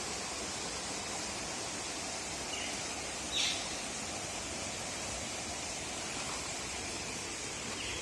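Steady forest background hiss with one short, high, falling chirp about three and a half seconds in.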